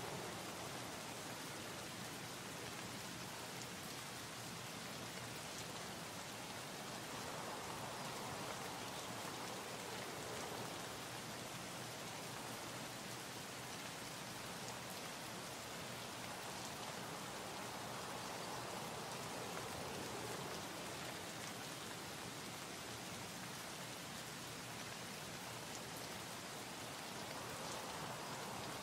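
Steady, even hiss like light rain, swelling gently about every ten seconds.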